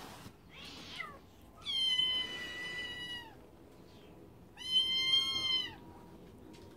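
Scottish Fold kittens meowing: a short falling cry, then two long, high-pitched meows of about a second and a half each.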